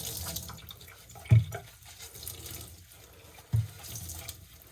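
Dirty, soapy drain water from a front-loading washing machine's pump filter opening splashing and dripping as it is handled with a rag, with two dull thumps, the first about a second in being the loudest.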